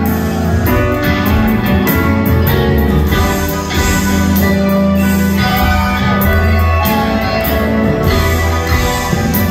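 A live band playing, heard from among the audience in a concert hall: guitar, keyboards, upright bass and drums together, with steady drum and cymbal hits over a strong bass line.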